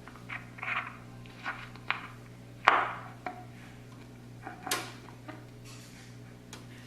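A series of short clicks and knocks, the loudest about two and a half seconds in, over a steady low hum. The clicks and knocks are typical of someone handling the record player.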